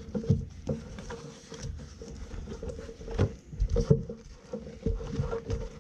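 Handling noise from a roll-up tool pouch of steel punches and chisels being folded shut: rustling and rubbing, with irregular soft knocks as the tools shift inside. The loudest knocks come about a third of a second in and again around three and four seconds in.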